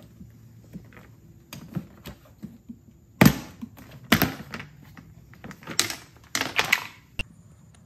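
Plastic side panel of a Genmax GM3500iAED inverter generator being unclipped and lifted off: scattered sharp plastic clicks and knocks, the loudest about three seconds in, with more around four and six to seven seconds in.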